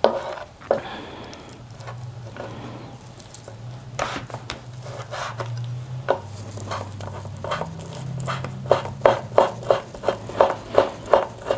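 Ceramic knife chopping boiled chicken breast on a wooden cutting board: a few scattered knocks of the blade on the board, then a steady run of chops, about three a second, louder towards the end. A low steady hum runs underneath through most of it.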